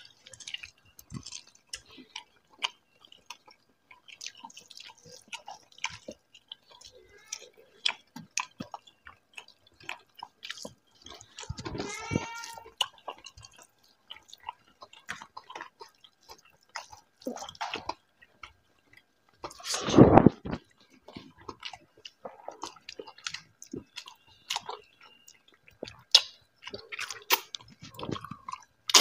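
Close-up eating sounds of two people eating mutton curry and fried rice by hand: wet chewing and lip smacks, with many small clicks of fingers working rice on steel plates. A short hum-like voice sound comes about twelve seconds in, and a single louder noise about twenty seconds in.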